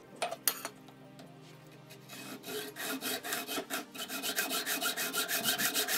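Hacksaw cutting through aluminum angle trim: a couple of light knocks near the start, then quick, even back-and-forth rasping strokes that begin about two seconds in and grow louder.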